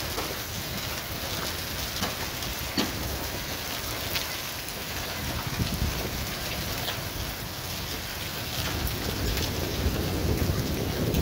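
Heavy rain mixed with small hail falling on open ground, a steady hiss with scattered sharp ticks of hailstones striking. A low rumble builds near the end.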